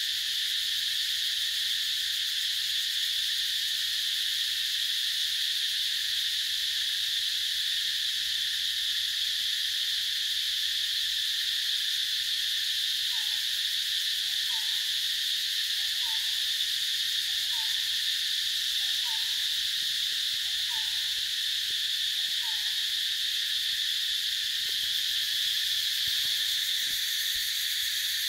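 A steady, high-pitched drone from a chorus of insects. About halfway in, a bird gives a short two-note call, dropping in pitch, seven times, about once every second and a half.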